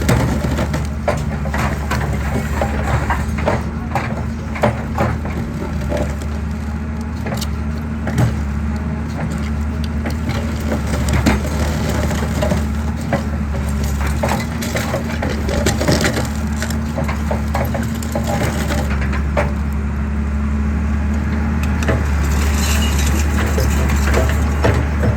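Excavator's diesel engine running steadily while concrete is crushed, with frequent irregular cracks and crunches of breaking concrete over the engine.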